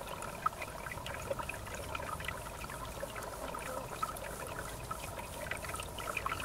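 River water trickling and gurgling, a steady run of many small bubbling plops.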